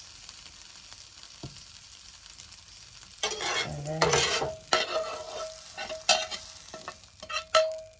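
Food sizzling in a frying pan, then from about three seconds in a run of scrapes and clatters as a utensil works in the pan, with a brief ringing tone.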